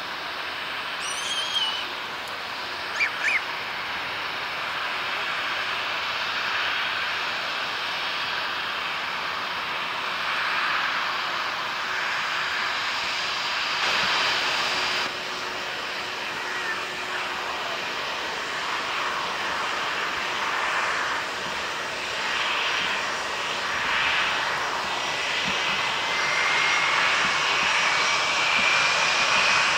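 Jet engines of an Airbus A320-family airliner running at taxi power, a steady rushing whine with the level swelling and easing as it moves. A thin rising whine comes in over the last few seconds, and two short high chirps sound near the start.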